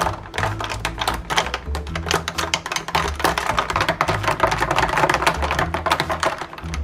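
Ice cubes clinking and rattling against the side of a cup as a metal straw stirs iced coffee, a quick, dense, irregular run of clicks.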